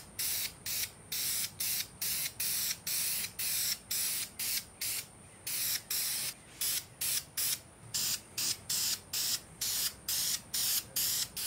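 Aerosol can of high-temperature spray paint being sprayed in a quick series of short hissing bursts, about two to three a second, with brief gaps between.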